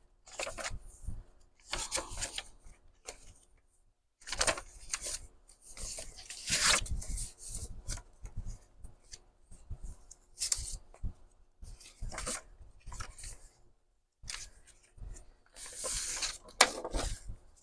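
Sheets of journal paper being handled and moved around, rustling and sliding in irregular bursts, with two short pauses.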